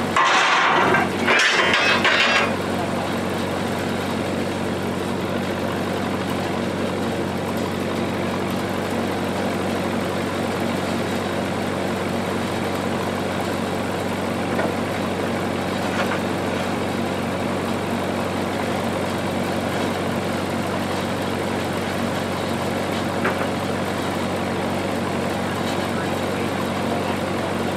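Generator engine running steadily throughout. It opens with two loud bursts of harsh noise in the first couple of seconds, and a few light knocks of steel come later.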